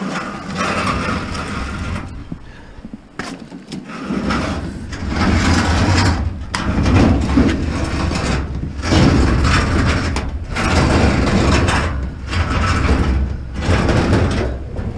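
Heavy old top-loading washing machine being wrestled and slid into a van: its sheet-metal cabinet scrapes and knocks, several sharp knocks among steady scraping. A low rumble comes in about four seconds in and carries on.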